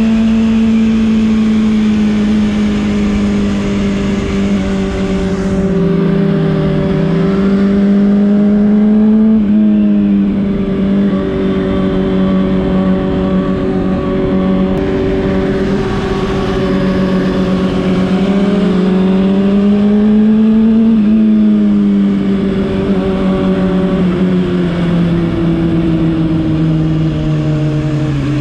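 Honda CBR600RR's 600cc inline-four engine at a steady cruise with wind rush. Its note climbs slowly and drops sharply twice, about a third of the way in and again about two-thirds in, as gears are shifted. Near the end the note falls away as the bike slows.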